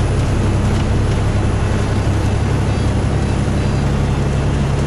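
Tractor-trailer's diesel engine and tyre and road noise heard inside the cab at highway cruising speed: a steady, unchanging low drone.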